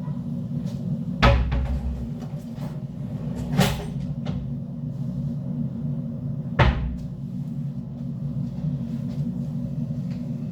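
Three sharp knocks, about a second, three and a half seconds and six and a half seconds in, like things being handled or set down, over a steady low hum.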